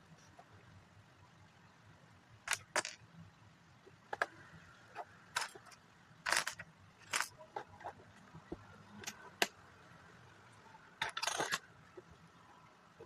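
Lego pieces and their packaging being handled: scattered sharp clicks and short crinkly rustles at irregular intervals, with a cluster of them about eleven seconds in.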